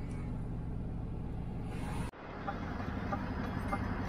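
Delivery vehicle's engine and road noise heard inside the cab, steady and low. After a cut about two seconds in, the engine hum goes on with a light, regular ticking a little under two times a second.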